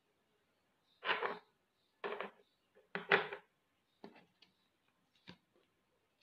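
Handling noise: a handful of short rustles and knocks, about one a second, the loudest about three seconds in.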